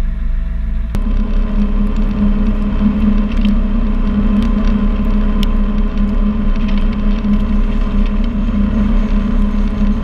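John Deere 7920 tractor's six-cylinder diesel engine running steadily as the tractor drives, heard close up from the bonnet as a continuous drone. About a second in, it takes over from a different, shorter steady hum.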